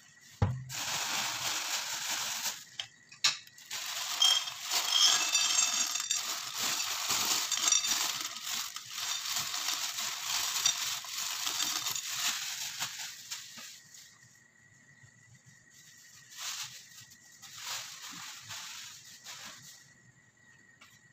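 A knock about half a second in, then cooking oil sizzling and crackling in a saucepan on a gas stove for about thirteen seconds, dying down to a few short hisses near the end.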